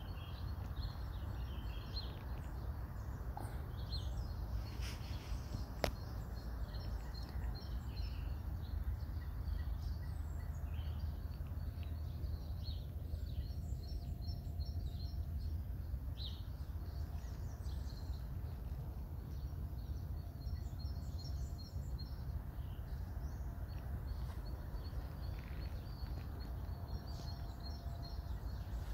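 Small birds chirping and singing in short, high calls throughout, over a steady low background rumble. There is one sharp click about six seconds in.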